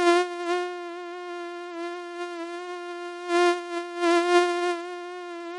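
Mosquito wing whine: a steady, thin buzz at one pitch that swells louder near the start and again twice about three and a half to four and a half seconds in, as if the mosquito flies close past the ear.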